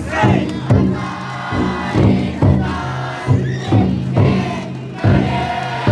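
Taiko drum inside a futon daiko festival float beaten in repeated heavy strokes, with a crowd of bearers chanting and shouting in unison.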